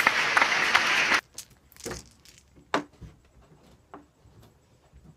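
Knit sweater fabric rubbing and rustling against the microphone for about a second and a half, then a few soft knocks and clicks.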